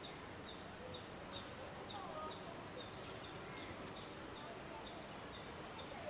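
Outdoor ambience: a steady background hiss with a small bird chirping in a quick, regular run of short high notes, and a few other faint bird calls.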